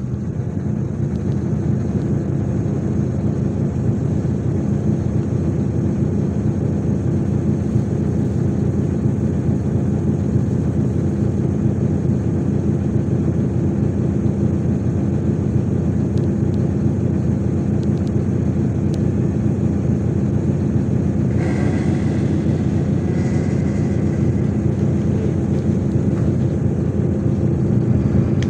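MAZ-103 city bus engine running steadily under way, heard from inside the bus, with a steady low drone. A short high-pitched tone sounds twice about three-quarters of the way through.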